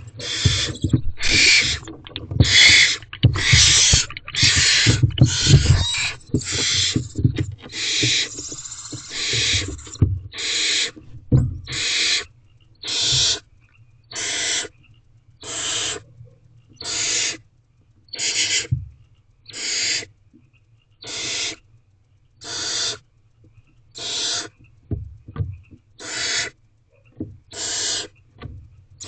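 Barn owlets giving hissing food-begging calls inside the nest box. For the first ten seconds or so several calls overlap with low knocks and scuffles, then one owlet keeps up an even hiss about once every second and a bit.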